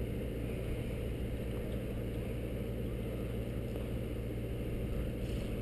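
Boat's outboard motor idling with a steady low hum.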